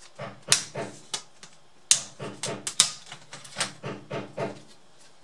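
Plastic casing of a Samsung NP550 laptop clicking and snapping as its clips are pried apart: several sharp, loud snaps among a quick run of softer clicks.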